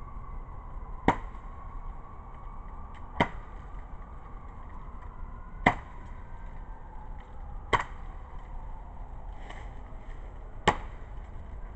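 Katana blade striking a dry-rotted dead tree trunk: five sharp chopping smacks a couple of seconds apart.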